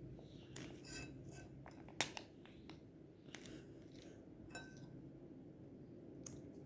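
Faint, irregular clinks and taps of a spoon against a bowl as thick glue is spooned in, some ringing briefly, the sharpest about two seconds in.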